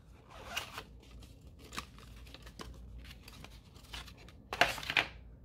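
Cardboard phone-box insert scraping and sliding as it is lifted out of the box, with light rustling of paper and plastic-bagged accessories. It is a scatter of short scratchy strokes, with a louder rustle near the end.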